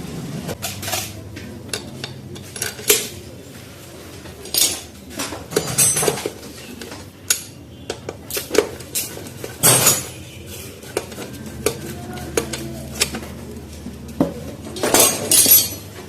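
Metal tools and engine parts clinking and clattering: irregular sharp metallic knocks and clinks, some ringing briefly, with a cluster of them about a second from the end.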